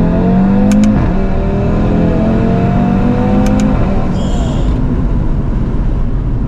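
Audi RS3's turbocharged five-cylinder engine accelerating hard, its pitch climbing. About a second in it drops suddenly on an upshift, then climbs again more slowly and levels off. A couple of brief sharp clicks sound along the way.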